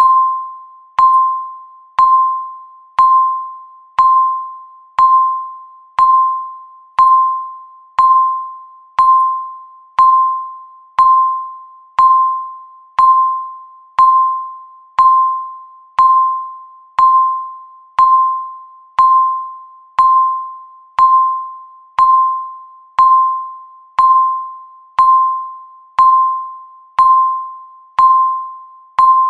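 Countdown timer's electronic beep sounding once a second: a single clear tone that starts sharply and fades away before the next one.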